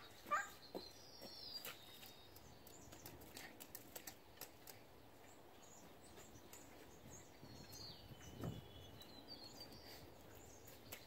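Quiet outdoor background with faint bird chirps and a few scattered light clicks, and one soft low thud about three-quarters of the way through.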